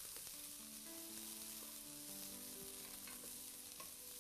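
Steady frying sizzle from pans of salmon steaks and of rice with peas and chickpeas, with a wooden spatula stirring and a few light knocks. Faint sustained notes of background music come in about half a second in.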